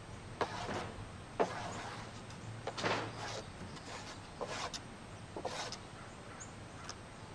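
Several short, irregular scrapes and light knocks of a hand trowel working tar onto roofing membrane and metal counter flashing.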